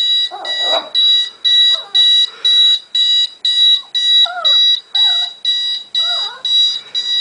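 Electronic alarm beeping in a steady pattern of about two high beeps a second, with a puppy giving short, wavering cries against it several times.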